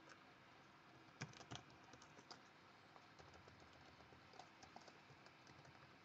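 Faint computer keyboard typing: scattered soft key clicks, the two loudest a little over a second in.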